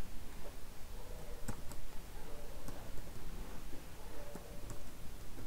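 Slow, irregular typing on a computer keyboard: a handful of separate key clicks a second or so apart.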